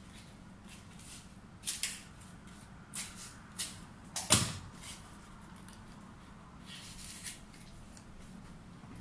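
Cut palm leaves rustling and swishing as they are handled and set into floral foam, in several short bursts, the loudest about four seconds in.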